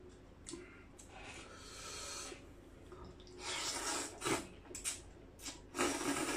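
A person eating close to the microphone: khanom jin rice noodles and salad sucked in with two long slurps and chewed, among small wet mouth clicks.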